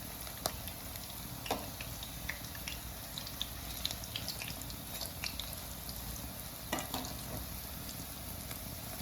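Pakora batter sizzling as it fries in a small amount of oil in a karahi. There is a steady crackle, with a few sharp knocks, the clearest about half a second in, a second and a half in, and near the end.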